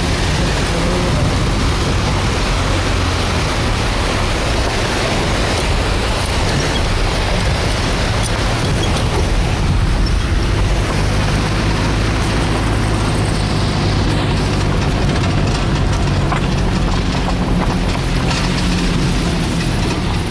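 Car driving along a road, heard from inside the cabin: a steady engine hum under tyre and wind noise.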